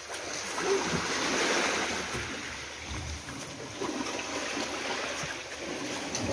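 Sea waves washing onto the shore: a steady rushing hiss that swells about a second in and eases off after a few seconds.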